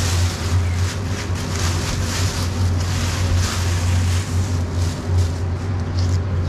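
Thin plastic bag crinkling and rustling as it is worked off a roll of chicken mortadella, easing off near the end, over a steady low hum.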